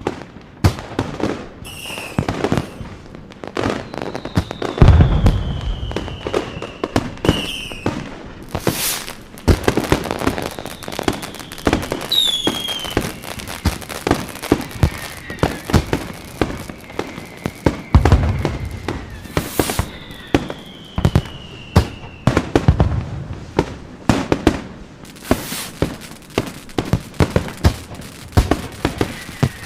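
Fireworks going off: a dense run of sharp cracks and pops, with deep booms about five seconds in and twice more later. Several whistles fall in pitch among them.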